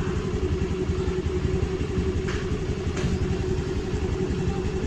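Honda Dio 110 scooter's single-cylinder engine idling steadily, with two faint clicks about two and three seconds in.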